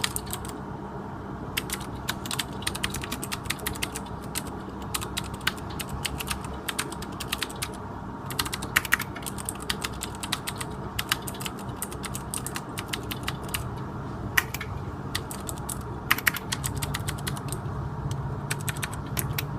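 Ducky One mechanical keyboard with clicky Cherry MX Blue switches being typed on: quick runs of sharp keystroke clicks with short pauses between bursts, over a faint steady hum.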